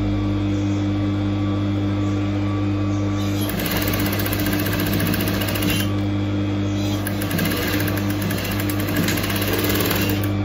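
Sewing machine stitching fabric strips onto a door mat's thick cloth base, over a steady hum. It starts stitching at a rapid, even rate about three and a half seconds in, pauses briefly, then stitches again until near the end.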